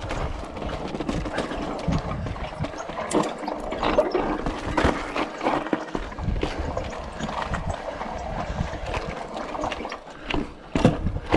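Yeti SB6 full-suspension mountain bike descending bare granite slab: tyres rolling and scrubbing over rock under a steady rushing noise, with frequent knocks and rattles from the bike over bumps.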